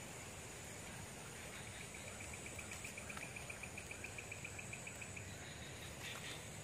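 Insect chirping: a rapid, even trill of about eight pulses a second that starts about one and a half seconds in and stops after some three and a half seconds, over a steady high insect hum.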